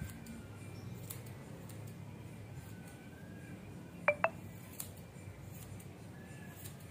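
Steel scissors snipping through a shih tzu's fur, soft and intermittent, with two quick metallic clinks close together about four seconds in.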